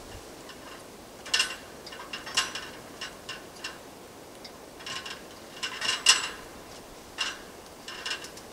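Irregular short clicks and scrapes of hand work on the roof, about one or two a second, with the sharpest click about six seconds in.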